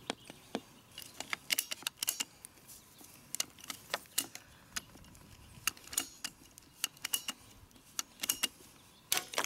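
Ratcheting PVC pipe cutter cutting through 1-inch Schedule 40 PVC pipe: a series of sharp, irregular clicks as the handle is squeezed and the ratchet advances the blade.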